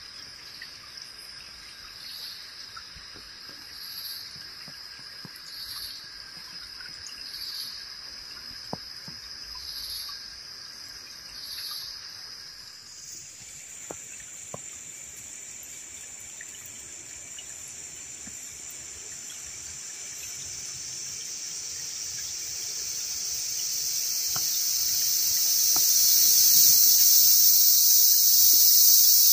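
Rainforest insects calling: first a high pulsing call repeating about every two seconds, then, from about halfway, a steady high buzz. A shallow forest stream's trickle swells over the last third and ends up the loudest sound, with a few faint crackles of leaf litter underfoot.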